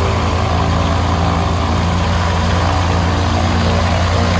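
Rotax 912 engine of a motorized hang-glider trike, with its pusher propeller, running steadily at idle while the trike taxis.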